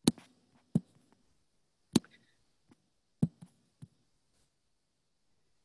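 Computer mouse clicking: about six short, sharp clicks at irregular intervals, the loudest near the start, around two seconds in and a little after three seconds.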